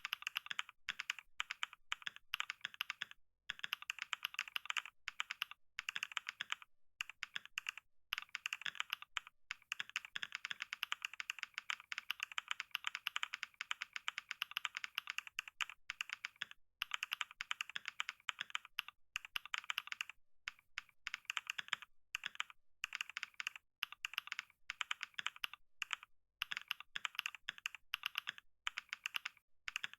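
Rapid, continuous typing on a computer keyboard: a dense stream of key clicks with a few short pauses.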